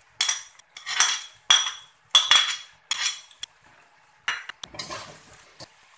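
A spatula scrapes and knocks against a steel wok as noodles are stir-fried and tossed. About six sharp strokes come in the first three and a half seconds, each leaving the wok ringing, and softer stirring follows.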